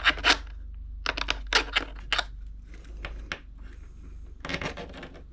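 Plastic and foam parts of an RC airplane kit clicking and tapping as they are handled and pushed into place, in several short clusters of sharp clicks, with a steady low hum underneath.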